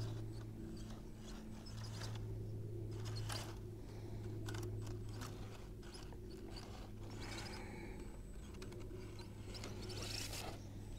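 Axial Capra RC rock crawler's electric motor and geared drivetrain whirring steadily as it creeps downhill at crawl speed, with scattered clicks and scrapes from its tyres and chassis on sandstone and dry grass.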